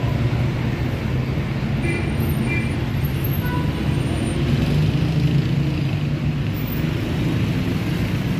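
Steady city street traffic: a low, continuous hum of car and bus engines in slow, queued traffic, with road noise.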